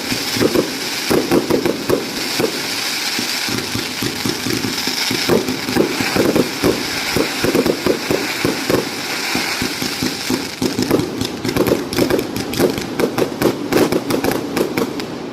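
A 568-shot firework cake firing a rapid, unbroken barrage of launches and bursts, many pops a second with crackling, growing denser near the end.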